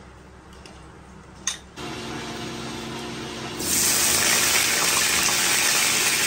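Cubed potatoes frying in hot oil in an aluminium kadai, a loud steady sizzle that starts about three and a half seconds in after a quieter stretch.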